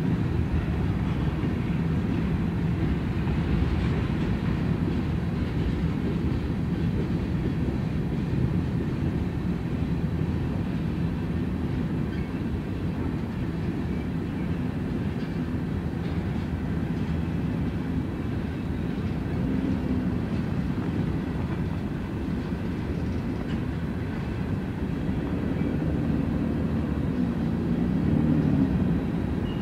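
Freight train's covered hopper cars rolling past: a steady low rumble of steel wheels on the rails.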